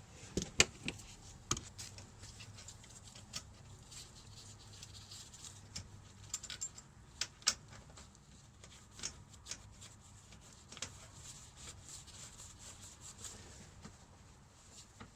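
Irregular light clicks and knocks of metal fork parts and tools being handled as the fork's top nut is pressed down and threaded in against the spring's tension. The clicks are sharper and louder near the start and around the middle.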